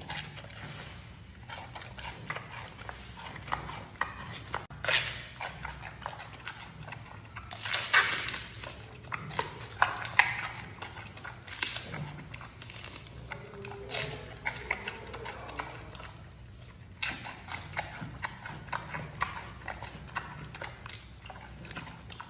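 Giant panda chewing and crunching bamboo shoots: a run of irregular crisp cracks and crunches, with louder bursts of crunching about eight and ten seconds in.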